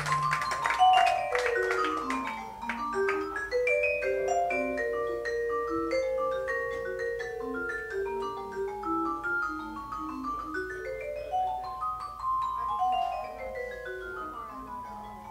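Vibraphone played unaccompanied in fast mallet runs: cascades of ringing notes sweeping down the bars, then back up and down again, some notes left to ring on.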